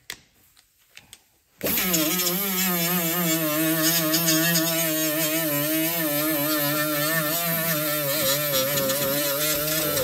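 Air die grinder fitted with a gasket-removal pad starting up suddenly about one and a half seconds in, then running steadily with a whine that wavers slightly in pitch over a strong high hiss, as the pad scrubs old gasket material off the aluminium sump face of a Briggs & Stratton engine.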